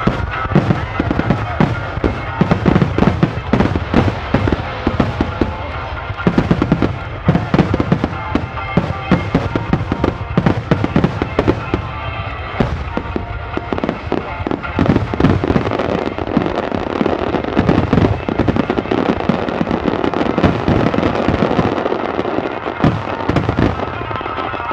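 Rapid barrage of aerial firework shells bursting from a starmine display: dense, overlapping bangs close together. Music plays underneath.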